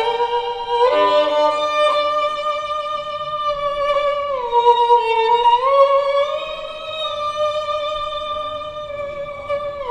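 Recorded violin music played back over Børresen Z2 Cryo Edition loudspeakers: a slow melody of long held notes that slide between pitches, dipping and climbing again about halfway through.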